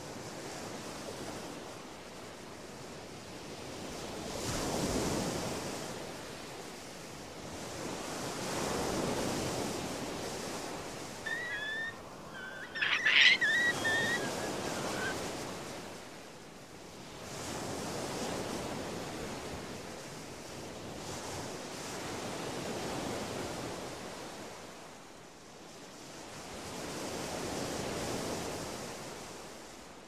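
Surf washing onto a sandy beach, swelling and fading about every four to five seconds. About halfway through there are a few short high chirps and one sharp, loud note.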